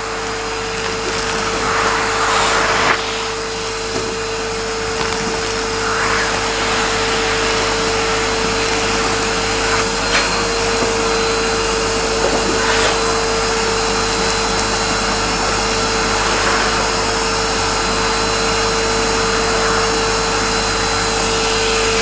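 Henry canister vacuum cleaner running with a steady motor whine and rushing suction. The hose is drawn over the carpet, and the hiss swells briefly every few seconds.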